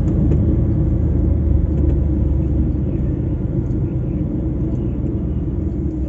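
Diesel engine of a DAF truck heard from inside the cab, a steady low rumble as the truck pulls slowly away.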